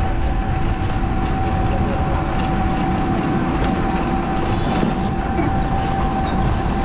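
A vehicle running along a paved road: a steady low rumble and road noise, with a constant high whine over it and a few light rattling clicks.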